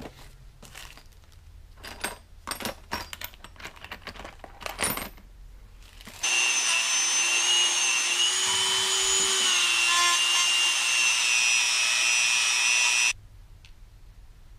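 A few light clicks and knocks of parts being handled, then a handheld rotary tool runs with a steady high whine for about seven seconds, its pitch wavering slightly, as it grinds stray paint off the cast-iron lathe apron. The whine starts and stops abruptly.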